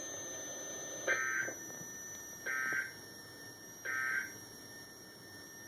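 Three short bursts of buzzy digital data tones about a second and a half apart, over faint radio hiss: the NOAA Weather Radio SAME end-of-message code that closes an EAS alert.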